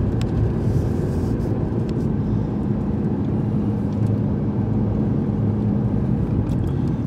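A car driving, heard from inside the cabin: a steady low rumble of engine and tyre noise, with a steady hum through the middle of the stretch.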